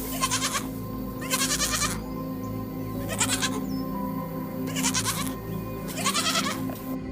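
Five bleats from a farm animal, each about half a second long and spaced one to two seconds apart, over steady background music.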